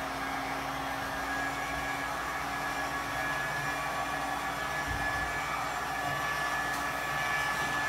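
Handheld immersion blender running steadily in a bowl of homemade soap batter, a constant motor hum with an even whine. The batter is being blended to a thick, pudding-like trace.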